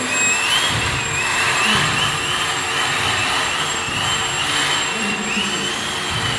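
Home-built CNC machine running: a high whine that rises and falls in pitch again and again over a steady rushing noise.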